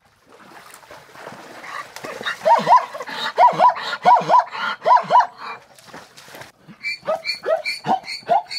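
Zebra barking call. A wheezy build-up leads into a series of paired high barks, then after a short pause a quicker run of short yapping notes.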